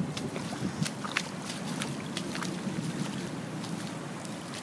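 Wind noise on the microphone over rainwater flooding a driveway, with scattered sharp ticks throughout.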